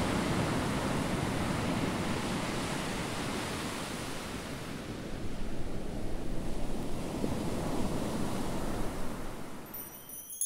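Surf washing in a steady rush of waves, swelling again about halfway through and fading out near the end.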